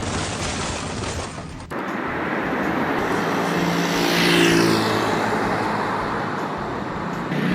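A motor vehicle's engine and road noise, swelling to its loudest about halfway through and then easing off, with a high whine that falls in pitch.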